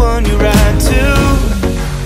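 Background pop music: a melody over heavy bass and a steady beat.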